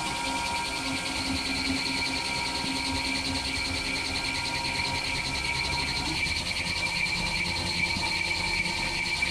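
Mazak Integrex mill-turn CNC machine running under flood coolant: a steady high-pitched whine over the hiss of coolant spray. A lower hum stops about six seconds in.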